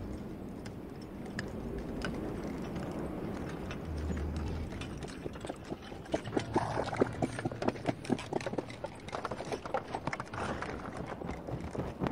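Horse hooves clip-clopping in a quick, uneven patter that starts about halfway in and grows louder.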